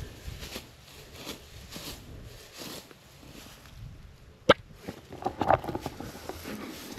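Slow footsteps swishing through dry grass, about one step every half to three-quarters of a second. About halfway through comes one sharp loud click, followed by a short flurry of small clicks and rustles.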